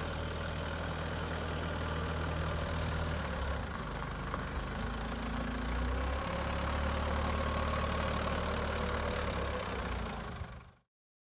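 Diesel engine of a Toyota 62-6FDF25 forklift running steadily at low revs while the truck drives slowly. The sound cuts off abruptly near the end.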